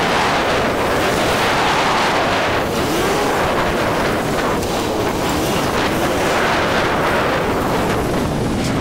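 Wind rushing over the microphone of a motorbike in motion, with a faint engine note rising and falling underneath.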